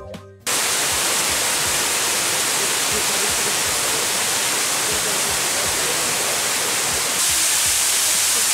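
Waterfall: a steady rush of falling water that cuts in suddenly about half a second in as music ends, turning brighter and hissier near the end.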